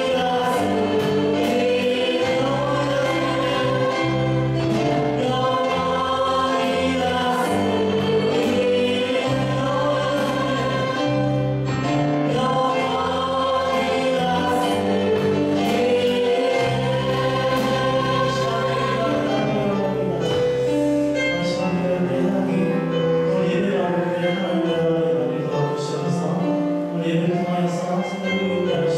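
A worship team of one male and two female voices singing a Korean praise song into microphones over instrumental backing. Near the end the voices stop and the backing plays on.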